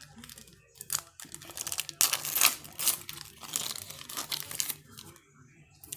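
Foil trading-card pack wrapper being torn open and crinkled as the cards are slid out, a series of irregular crackling rustles, loudest about two seconds in.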